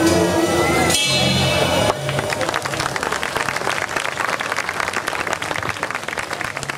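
A small orchestra and singer end a bossa nova song on a final held note and chord, which stops about two seconds in. Audience applause follows and carries on.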